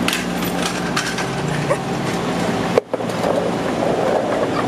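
Busy city street noise: traffic running steadily, with a few light knocks and ticks. A sharp click and a brief drop-out come a little past halfway.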